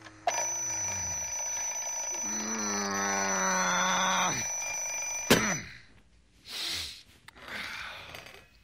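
An alarm clock ringing steadily for about five seconds. A drawn-out, falling groan sounds over it partway through, and a sharp click cuts the ringing off. A few faint breathy sounds follow.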